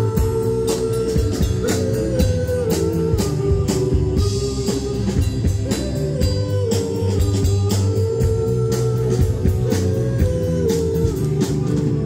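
Live band music: an electric guitar melody over drum kit and keyboard, playing steadily throughout.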